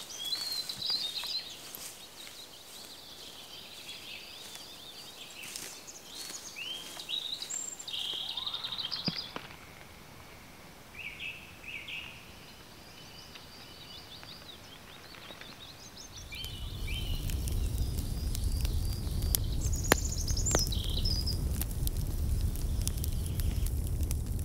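Songbirds singing in woodland, many short chirps and trills. About two-thirds of the way through, a steady low rumbling noise comes in beneath the birdsong and stays, with scattered faint clicks.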